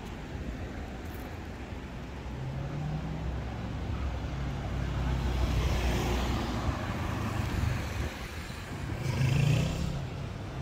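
A car driving past on the street: engine and tyre noise build to a peak about halfway through and fade, then a second swell comes near the end.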